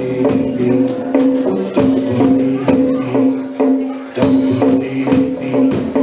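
Live band playing an instrumental stretch on guitar, bass and drum kit: sustained pitched notes over a steady, regular beat of drum hits.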